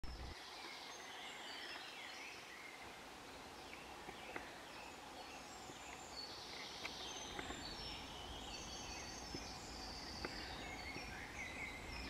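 Woodland birdsong: several birds singing at once in short, high, overlapping phrases, with a few faint ticks scattered through.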